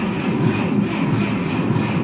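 Ferguson TO-30's Continental four-cylinder gasoline engine cranking over on its starter motor, a steady, evenly pulsing chug without catching, after spark was restored at the plugs.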